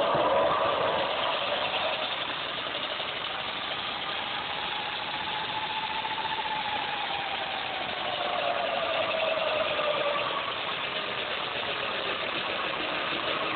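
Converted electric dirtbike's 36-volt electric motor running and driving its belt pulley: a motor whine that climbs in pitch to a peak about six seconds in, then falls back and steadies, over a steady mechanical whirr.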